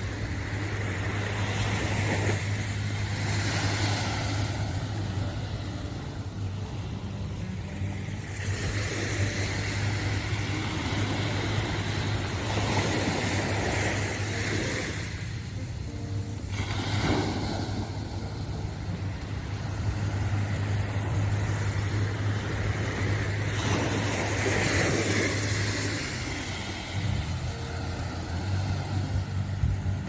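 Small waves washing onto a sandy shore, the surf noise swelling and fading every four to five seconds over a steady low hum.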